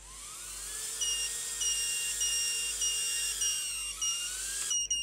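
Happymodel Mobula7 tiny-whoop quadcopter's motors and propellers spinning up while it is held on the bench: a rising whine with a hiss, dipping and rising again near the end before cutting off, on a first arming test after setup. Repeated high beeps, about two a second, sound over it.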